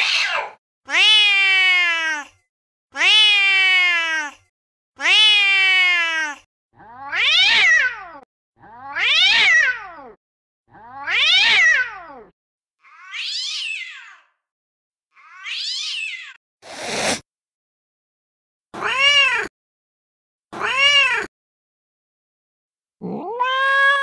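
Recorded angry domestic cat calls played back one after another: a run of harsh meows and yowls, each about a second long and cut off into silence, several repeated identically in sets of two or three. Past the middle comes a short hiss, then two short meows, and near the end a longer drawn-out yowl begins.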